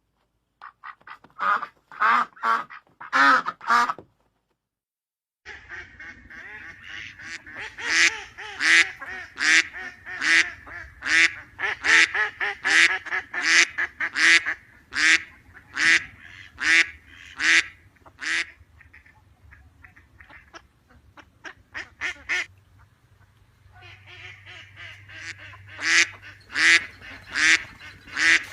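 Ducks quacking in short, repeated calls. After a brief gap a new recording starts with a steady run of evenly spaced quacks, about one a second, over a low hum. The calls thin out for a while, then pick up again near the end.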